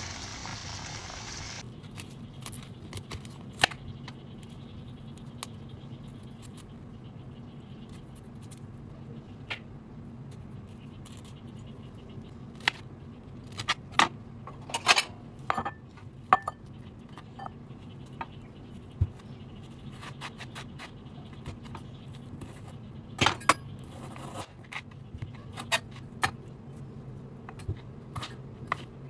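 Kitchen knife cutting broccoli and then a frozen carrot on a wooden cutting board: irregular sharp knocks of the blade against the board, over a steady low hum. In the first second or two, a hiss of boiling water.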